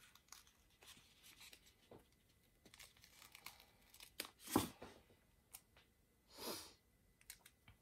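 Faint paper sounds of a washi sticker being picked and peeled off its backing by fingernails: small crinkles and ticks, with a louder brief rip about halfway through and a short swish near the end.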